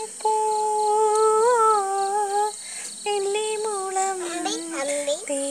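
A woman humming a song tune to a toddler in long, sliding held notes. Crickets chirp behind it in a steady pulse.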